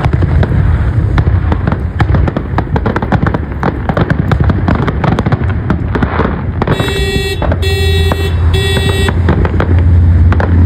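Aerial fireworks shells bursting in quick succession, with dense banging and crackling. About two-thirds of the way in, a horn sounds three short blasts over the bangs, and a low steady hum comes in beneath.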